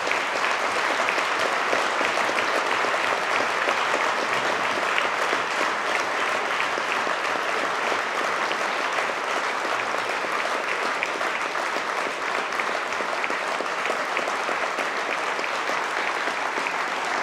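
A large audience applauding steadily, many hands clapping at once in a dense, even patter.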